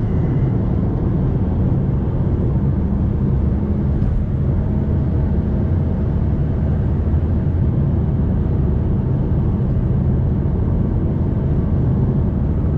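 Fiat Toro Volcano's 2.0 turbodiesel engine and tyres at a steady highway cruise: an even low drone of engine and road noise, with a faint steady hum coming in about four seconds in.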